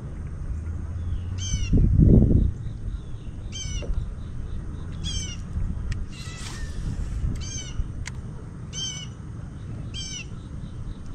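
A bird calling over and over, a short cry that falls in pitch, repeated about every second and a half, over a steady low rumble. A low thump about two seconds in is the loudest moment.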